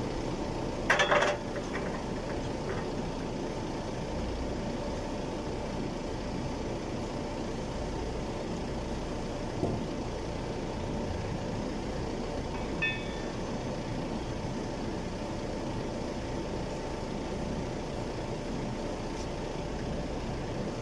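Forklift engine idling steadily, with a loud clang of a steel fork against the carriage about a second in and a couple of lighter metal knocks and rings later as the forks are taken off.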